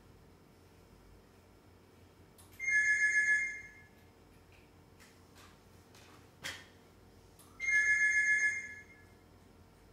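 An electronic warbling tone sounds twice, each time for about a second, about five seconds apart. A few sharp clicks fall between the two tones.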